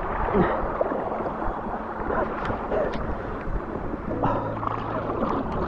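River water gurgling and splashing around paddleboards, with wind buffeting the microphone. A steady low hum comes in about four seconds in.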